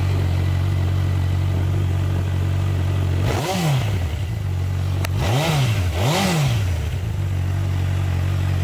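2011 Honda CB1000R's inline-four engine idling through its stock exhaust and blipped three times: the revs rise and fall once about three seconds in, then twice in quick succession a couple of seconds later.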